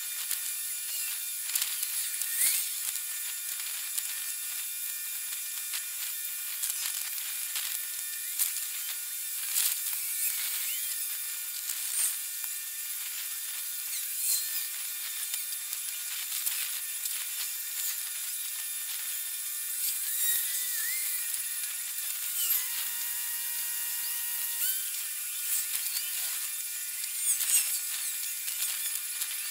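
Quayside location sound sped up about forty times with the timelapse, turned into a high-pitched buzzing hiss full of rapid clicks and short chirps.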